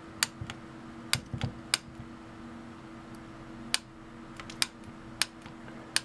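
Click-type torque wrench, set to 30 inch-pounds, on an SMA connector: about eight sharp clicks at uneven intervals as the wrench reaches its set torque, over a faint steady hum.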